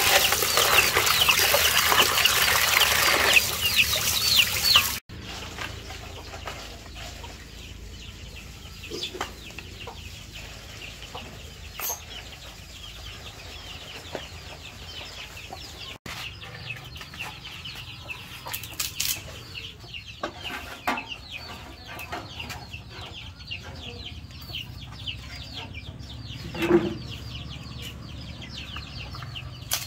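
Chickens clucking and chirping. A loud, dense stretch of high chirps cuts off abruptly about five seconds in, leaving fainter chirps, a few light knocks and one louder cluck near the end.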